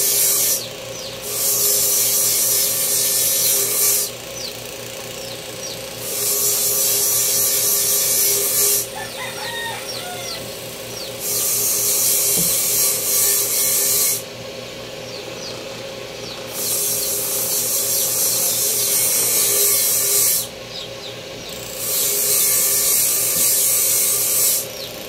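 A steadily running power tool grinding a blade in five long passes of about three seconds each, every pass a harsh, high hiss, with the motor's hum continuing through the short pauses between.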